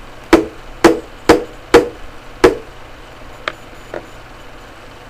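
Knife chopping a fake play-food tomato: five sharp knocks about half a second apart, then two fainter taps.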